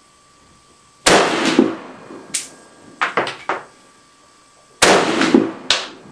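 Two shots from a semi-automatic SKS rifle in 7.62×39mm, about four seconds apart, each with a long trailing tail, followed by several fainter sharp cracks.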